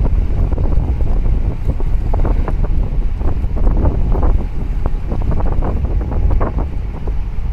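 Wind buffeting the microphone as a steady low rumble, with small waves splashing irregularly against concrete breakwater blocks.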